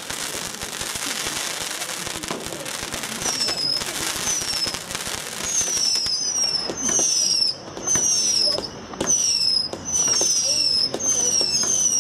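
'Tornado' firework going off: a crackling hiss at first, then from about three seconds in a rapid run of whistles, each one a short falling tone, coming about one or two a second.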